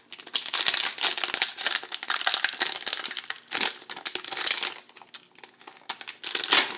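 Plastic wrapper of a baseball card pack crinkling as it is handled and opened, in dense bursts with a short lull about five seconds in.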